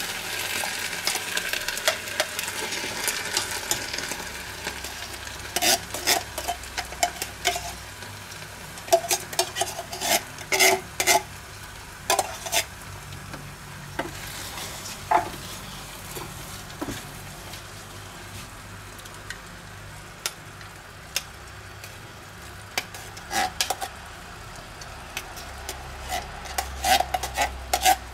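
Baked beans being stirred in a small stainless-steel saucepan with a wooden spoon, with clinks and scrapes of a metal spoon and tin cans against the pot as the beans are emptied in. Under it a soft sizzle fades over the first few seconds.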